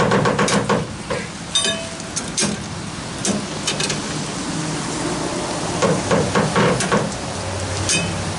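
Steel winch bar levering a flatbed trailer's strap winch to tighten a cargo strap: irregular metal knocks and clinks of the bar and winch ratchet, two of them ringing briefly, about a second and a half in and near the end.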